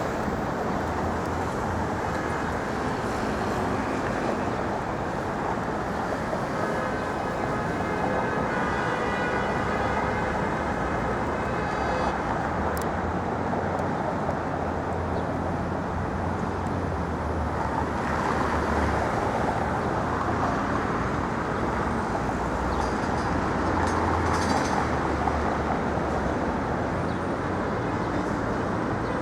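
Steady busy-street traffic noise, with vehicle engines running. A higher pitched tone of several notes rises above it for a few seconds about a quarter of the way in.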